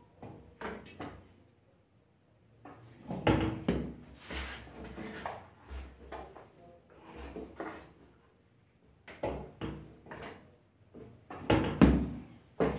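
Knocks and thumps of portions of bread dough being cut and set down on a floured board and a kitchen scale, coming in several clusters with short pauses between, the loudest a few seconds in and near the end.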